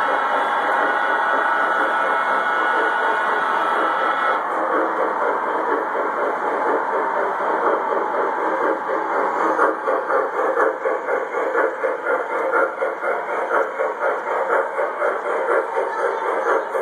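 O gauge model trains running on three-rail track: a steady mechanical whine and hiss, with a higher steady tone that cuts off about four seconds in. From about ten seconds in there is a quick, uneven clatter of wheels over the track, and the loudness pulses.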